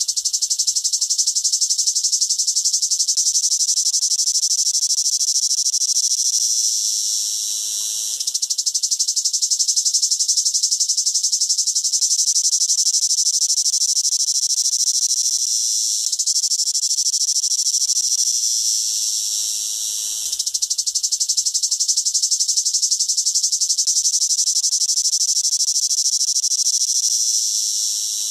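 Cicada singing: a loud, high, continuous buzz with a fine rapid pulse. It eases off briefly about eight and twenty seconds in, and again near the end, each time swelling back to full strength.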